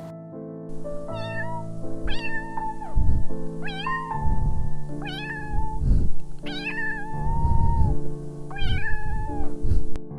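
A cat meowing about six times, each meow rising quickly and then holding, over steady background music.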